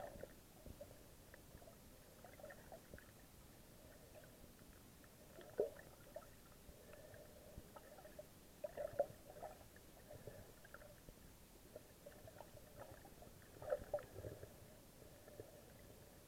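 Faint, muffled underwater gurgling and sloshing picked up by a submerged camera, in irregular short bursts. A few louder ones come about five and a half, nine and fourteen seconds in.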